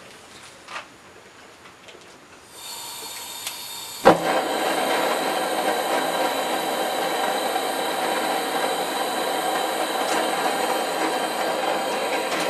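Propane hand-torch burner in a small insulating-firebrick forge being lit. Gas starts hissing about two and a half seconds in and catches with a sharp pop about four seconds in. The burner then burns with a steady rushing noise.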